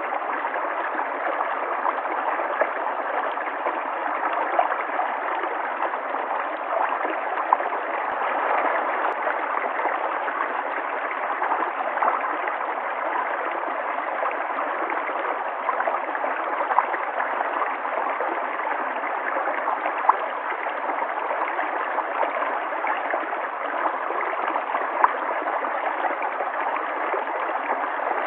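River water flowing steadily, with small gurgles and splashes now and then.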